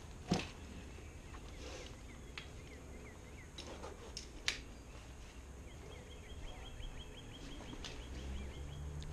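Scattered clicks and rustling of firefighter turnout gear and air-pack straps and buckles being put on, the sharpest click just after the start and another about halfway through, over faint birds chirping. A low handling rumble comes in near the end.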